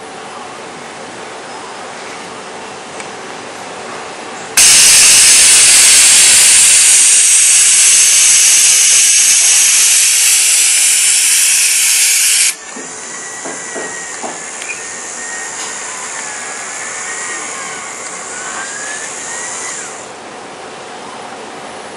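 Loud compressed-air hiss from the Denso robot arm's pneumatic gripper, starting abruptly about four seconds in and cutting off sharply about eight seconds later. After it the arm's servo motors whine, with the pitch rising and falling as the arm moves.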